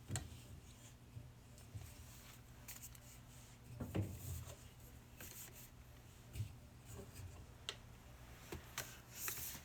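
Faint handling noises: scattered light knocks, clicks and rubbing as drink bottles and containers are moved about, with a few stronger bumps about four and six and a half seconds in.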